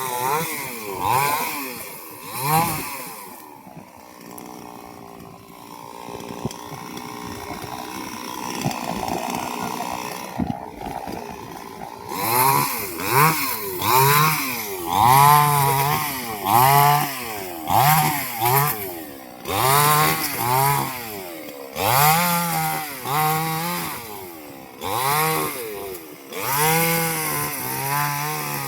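Two-stroke chainsaw running. After a steadier stretch it revs up and down again and again, about once a second, as it works through wood.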